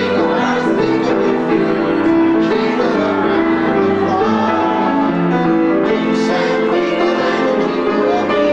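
Christmas carol played on two Steinway pianos, with a room full of people singing along.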